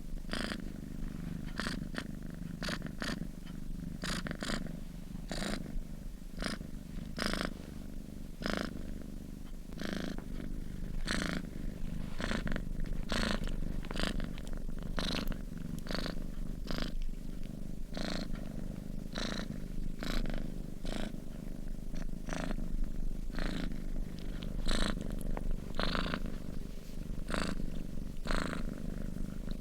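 Domestic cat purring steadily while asleep, a low continuous rumble, with short crackling sounds over it about twice a second.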